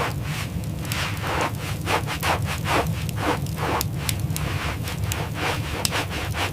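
Rhythmic scraping strokes, about two a second, over a steady low rumble.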